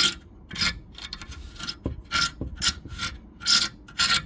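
A hand tool scraping in repeated rasping strokes, about six in four seconds, as the remains of the old fiberglass rope seal are scraped out of a wood heater door's metal channel.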